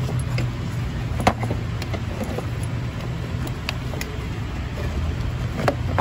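Plastic battery-box cover of a Volkswagen Golf Mk6 GTI being handled and worked loose by a gloved hand, giving a few scattered sharp plastic clicks and knocks over a steady low hum.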